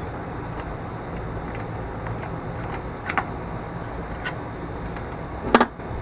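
A few light metallic clicks and clinks of a hand tool working the 1/4-inch nuts on a lawn mower's cover, with a louder double clink near the end, over a steady low hum.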